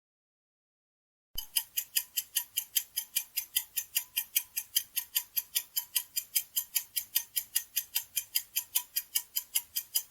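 Ticking-clock countdown sound effect, even sharp ticks about four a second, starting after about a second of silence.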